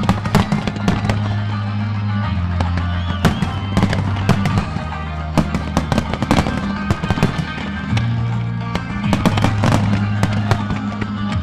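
Aerial firework shells bursting, many sharp bangs in quick succession throughout, over music with sustained low notes played with the display.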